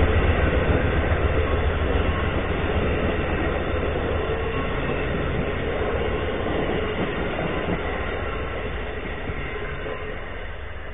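Amtrak passenger train, a locomotive followed by stainless-steel coaches, passing close by at speed: a steady rumble and rush of wheel and rail noise. It is loudest at the start as the locomotive goes by and gradually fades as the coaches pass.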